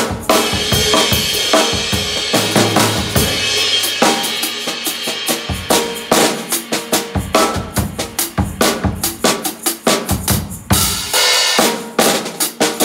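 KUMU drum kit played in a steady groove: bass drum, snare and cymbals, with a bright cymbal wash in the first few seconds. Small maracas held together with one stick add a shaker rattle to the strokes.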